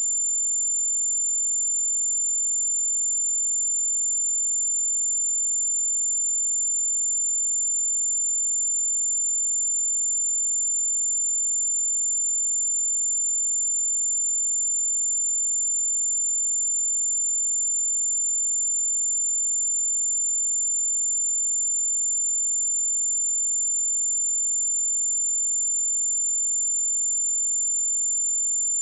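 A steady, pure 7178 Hz sine-wave test tone, held at one unchanging pitch and level: a high, thin whistle.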